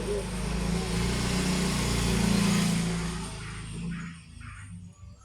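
A motor vehicle passing by: its engine and road noise swell to a peak about halfway through, then fade away near the end.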